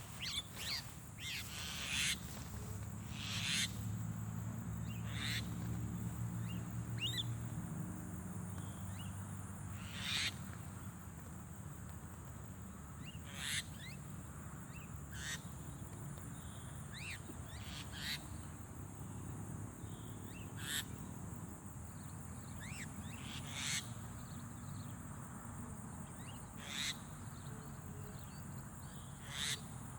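Short, sharp bird calls repeated irregularly every one to three seconds, over a steady high whine and a low hum.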